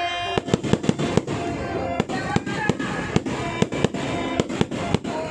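Fireworks going off in a rapid, irregular string of sharp bangs, about two or three a second, with music playing underneath.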